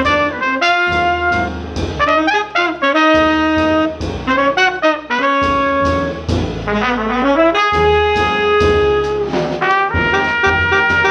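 Live small-group jazz: trumpet and tenor saxophone playing a melody line together in held and moving notes, backed by piano, double bass and drums.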